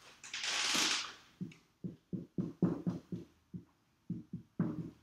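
Marker writing on a whiteboard: a rapid run of short, separate scratching strokes as a word is written, after a brief rushing noise at the start.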